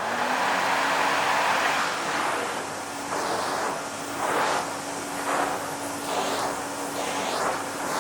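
Vacuum cleaner running, a steady motor hum under an airy rushing that swells and fades about once a second.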